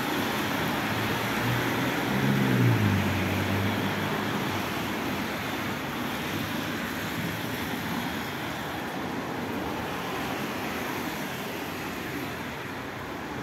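Street traffic on wet asphalt: a steady hiss of tyres on the wet road. About two seconds in, a vehicle engine passes close by, growing louder and then falling in pitch as it goes away.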